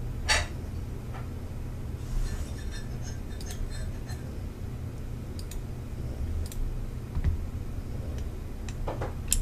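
A few separate computer mouse clicks, several seconds apart, over a steady low hum.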